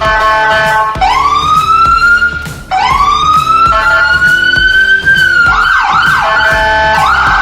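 Whelen 295 SLSA1 electronic siren sounding through an SA314A speaker, cycling through tones: two rising sweeps that climb and hold, the second falling away about five seconds in, then a quick whooping pattern and a rapid warble near the end. Background music with a beat plays underneath.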